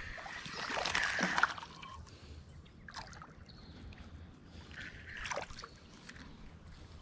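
Spinning reel being cranked, a rough whir, for about the first second and a half while a small hooked bass is reeled in. Then two short splashes, about three and five seconds in, as the fish thrashes at the water's surface.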